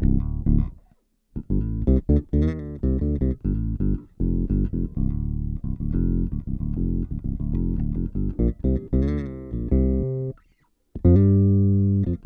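Electric bass played through a Boss OC-2 Octave pedal, set with the first octave-down voice at 60%, the second at 20% and the dry signal at 45%, thickening the notes with lower octaves. A run of plucked notes stops briefly twice: about a second in, and again near the end before a loud held note.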